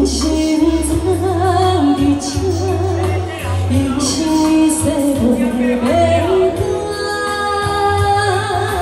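Woman singing a Taiwanese Hokkien pop song live into a microphone over musical accompaniment with a steady bass line.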